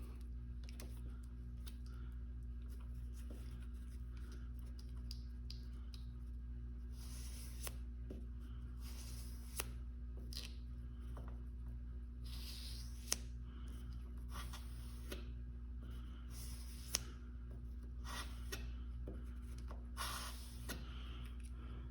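The flat back of a single-bevel steel broadhead stroked on fine sandpaper over glass: faint, irregular scraping rubs, with a couple of sharp ticks, over a steady low hum. The strokes are turning the burr and breaking it off the single-bevel edge.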